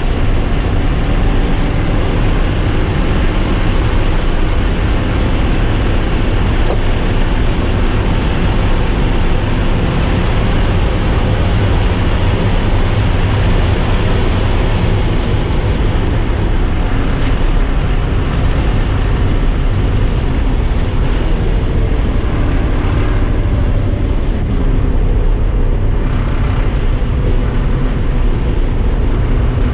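Porsche 944's four-cylinder engine running hard under load, heard from inside the car together with loud road and wind noise.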